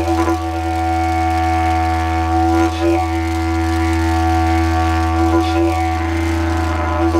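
Didgeridoo playing one low, unbroken drone with a bright overtone held above it, its tone wavering briefly a few times.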